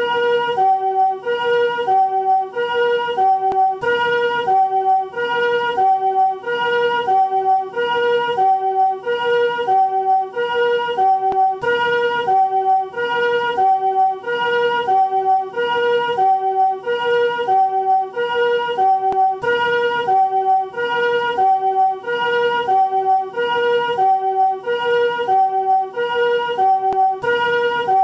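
Japanese ambulance chord-tone 'comfort' siren sounding its two-tone 'pee-po' pattern. A higher note alternates evenly with a lower one, about one high-low cycle every 1.3 seconds.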